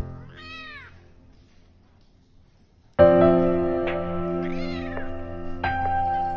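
Domestic cat meowing twice: one meow near the start with little else behind it, and a second about halfway through over background music that comes in suddenly about three seconds in.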